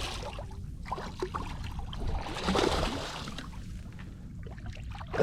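Water splashing and dripping with a few small knocks as a redfish is landed by hand at the side of a boat. The splashing is loudest about two and a half seconds in.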